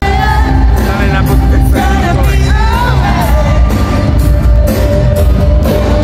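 Loud music with a heavy bass beat and singing.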